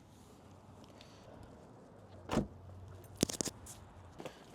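Handling sounds inside a parked car: a low hum, a dull thud about two seconds in, then a quick run of sharp clicks.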